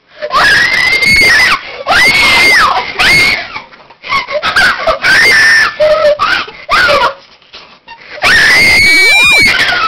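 A girl screaming over and over: a run of loud, high-pitched screams about a second each, with a longer one near the end.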